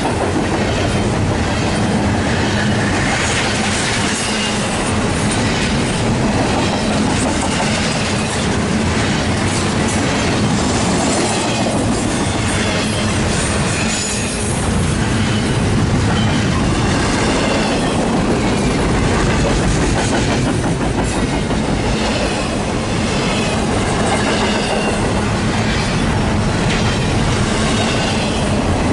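Double-stack intermodal freight train's well cars rolling past close by, steel wheels clicking steadily over the rail joints. Short high wavering squeals from the wheels come and go throughout.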